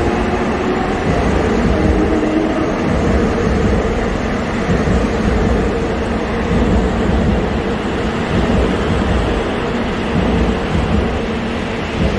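Subway train passing along a station platform at speed, a steady loud rumble of the train running on the rails.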